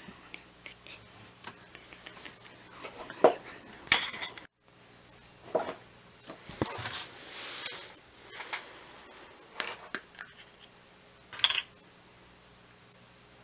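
Small hard objects being handled and set down on a table: scattered clinks, knocks and short scrapes, with the loudest knocks about 3 to 4 seconds in and again near the end.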